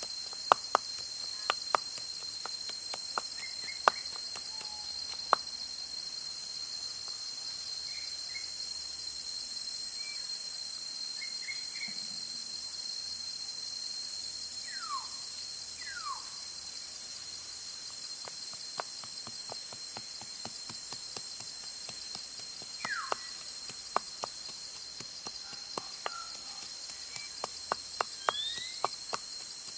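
Steady high-pitched drone of insects with a hiss above it, and a few brief falling bird whistles in the middle and toward the end. Scattered sharp clicks or taps break through, coming more often near the end.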